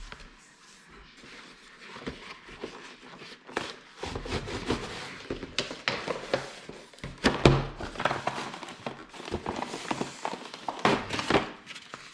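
Toy packaging being opened by hand: irregular rustling and handling noise with a string of small clicks and knocks, loudest around the middle and near the end.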